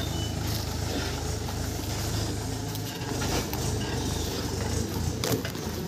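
Tractor engine running with a steady low rumble that weakens about halfway through, with a sharp knock or two near the end.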